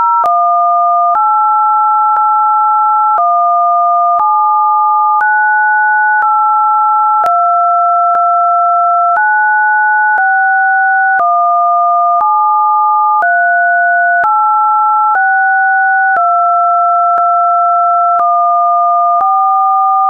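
Two pure electronic sine tones sounding together, a lower and a higher one, stepping to new pitches about once a second with a short click at each step: a synthetic test signal.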